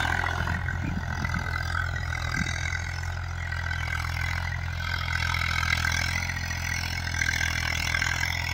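Eicher 333 tractor's 35 hp diesel engine running steadily under load while pulling an 11-tine cultivator through the soil, a low, even hum.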